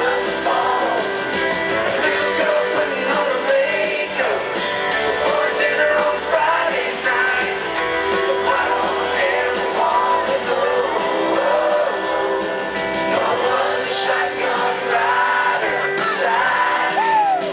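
Live country band performance: a male lead vocalist singing over electric and acoustic guitars and drums, played through a concert sound system.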